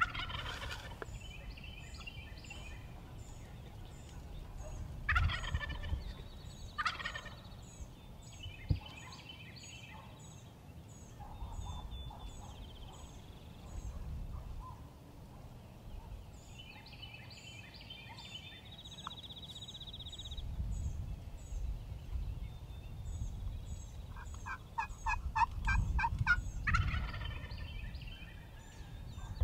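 Rio Grande wild turkey gobbler gobbling several times: right at the start, twice about five and seven seconds in, and again near the end. Between gobbles a small bird repeats short high chirps.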